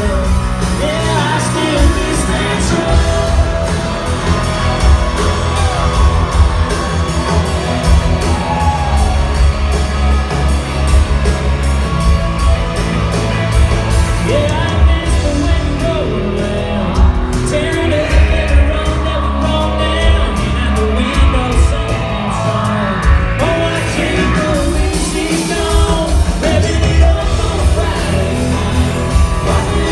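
A live country band playing loud through a theatre PA: singing over guitars, drums and heavy bass.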